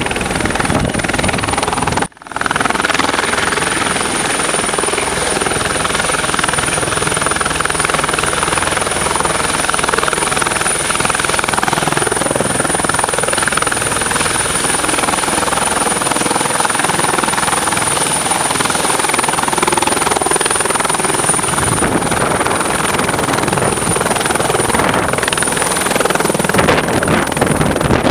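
Eurocopter EC120 Colibri helicopter running close by: the main rotor and turbine make a loud, steady noise with a thin high-pitched whine over it, as it lifts into a low hover near the end. The sound drops out sharply for a moment about two seconds in.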